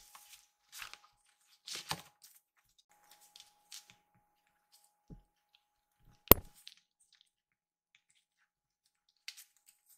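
A kitten pawing and biting at a string toy on a floor mat, making small scattered rustles and taps, with one sharp knock a little past the middle.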